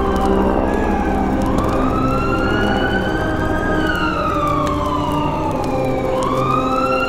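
A wailing siren, its pitch sliding slowly down, up, down and up again in sweeps of two to three seconds each, over a steady drone of held tones.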